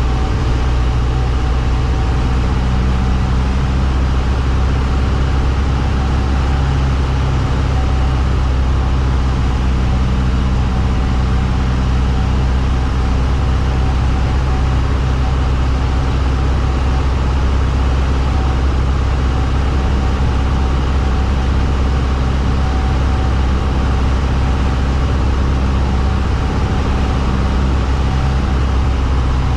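Piper Cherokee's piston engine and propeller droning steadily in flight, heard from inside the cockpit.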